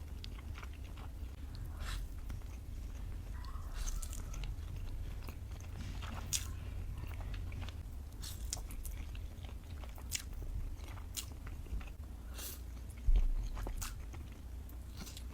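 Close-up eating sounds of someone chewing spaghetti: wet mouth noises with many short, scattered clicks over a steady low hum. A single heavy low thump comes near the end.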